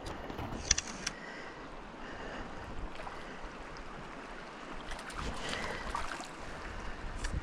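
Shallow creek water running steadily over riffles and pocket water, with a few light clicks about a second in.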